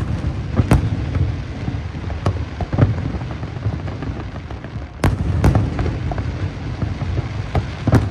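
Aerial fireworks going off: sharp bangs every second or two, some in quick pairs, over a continuous low rumble.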